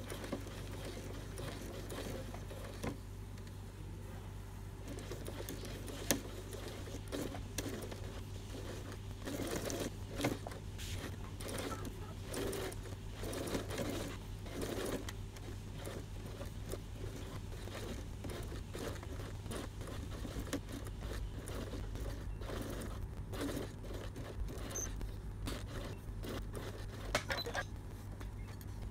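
Computerized electric sewing machine stitching through fabric: a low motor hum under a quick, even run of needle strokes, with cloth rustling as hands guide the fabric.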